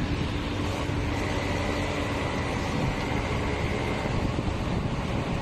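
Komatsu backhoe's diesel engine running steadily, a constant rumble with a faint steady whine.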